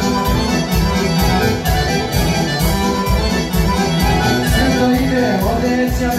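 Loud folk dance music with a steady, quick beat, the kind played for a kolo circle dance.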